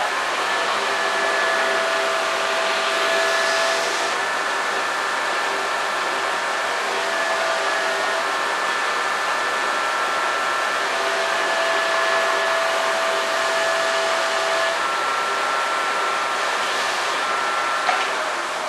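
An electric blower-type power tool runs steadily with a whoosh of air and a steady motor whine. It is switched off with a click near the end and winds down.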